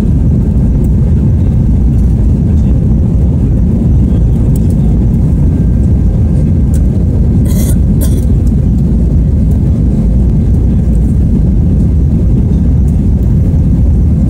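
Steady, loud low rumble and rush of Airbus A320 cabin noise over the wing during the climb, from the jet engines and airflow. Two brief clicks a little under half a second apart near the middle.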